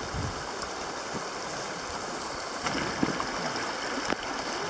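Shallow river running steadily over gravel riffles, with a few light knocks in the second half.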